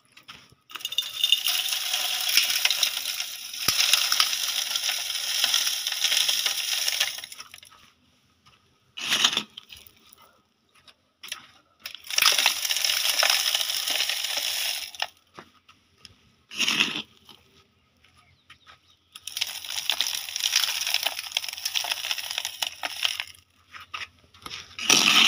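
Coarse sand and grit poured from a small clay dish into a large vessel, hissing as it falls in three long pours of several seconds each, with short bursts of sand noise between them. The vessel is being filled as a sand bath.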